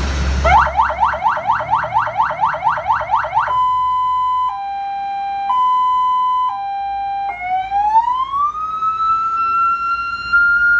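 Electronic emergency-vehicle siren cycling through its tones: a fast yelp sweeping up about four times a second, then a hi-lo two-tone switching pitch about once a second, then a slow wail rising about four seconds in from the end and holding high.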